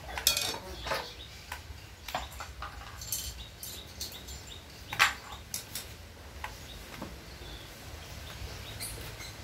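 Scattered metallic clinks and taps of tools and loose engine parts during work on a Bajaj CT 100 motorcycle engine, with one sharp clink about five seconds in.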